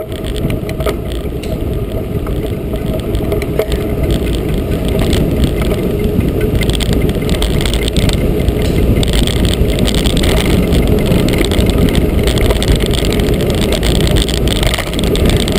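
Wind rushing over an action camera's microphone and mountain-bike tyres rolling on tarmac at speed. It grows louder over the first few seconds as the bike picks up speed, then holds steady.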